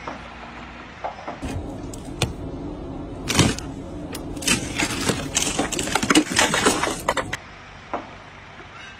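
Ice on a frozen car door cracking and breaking as a hand works at it: a run of irregular sharp cracks and crackles that thins out near the end.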